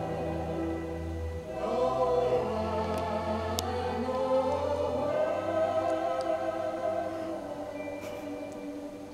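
Choral music: a choir singing slow, long-held chords.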